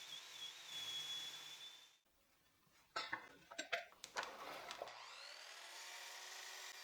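Faint workshop sounds: a few sharp knocks of wood being handled about three to four seconds in, then a table saw's falling whine as the blade winds down.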